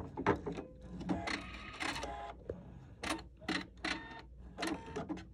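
Husqvarna Viking sewing machine stopping and cutting its thread: a brief mechanical whirr between about one and two seconds in, among a string of sharp clicks.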